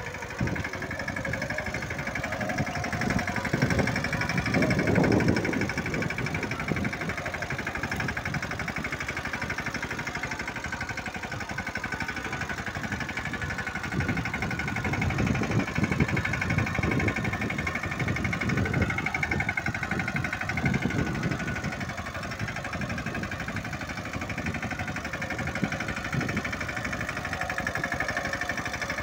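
Mahindra Yuvraj 215 mini tractor's single-cylinder diesel engine running steadily under load while pulling a seven-tine cultivator through the soil.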